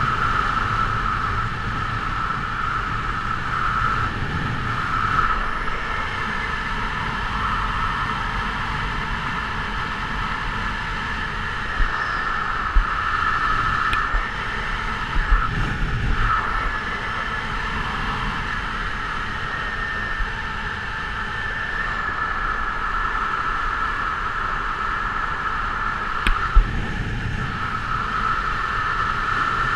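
Wind rushing over the camera microphone during a descent under an open parachute canopy: a steady rush with a steady whistling tone, and a few brief bumps about halfway through and again near the end.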